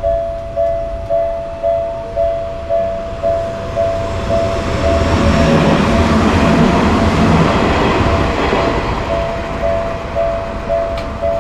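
Japanese level-crossing alarm ringing its two-tone "kan-kan" just under twice a second, while a train passes through the crossing: the train's rumble swells in the middle and then fades, briefly drowning the bell.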